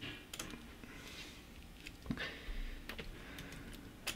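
A few scattered, faint clicks of computer keyboard keys, the sharpest just after four seconds in.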